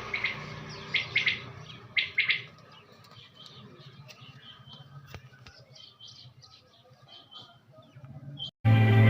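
Quail calling: loud high double notes about once a second at first, then a run of softer, short, high notes repeated over several seconds. A sudden louder sound cuts in near the end.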